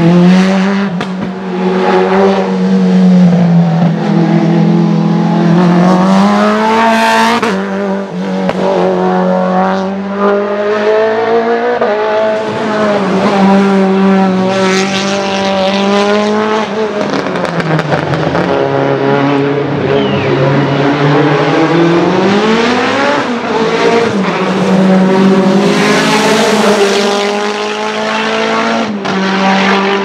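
Hillclimb race cars running flat out up the course, first an open sports prototype and then a Lancia Delta EVO hillclimb prototype. Their engines rev hard, and the pitch climbs and falls back again at each upshift as the cars pass.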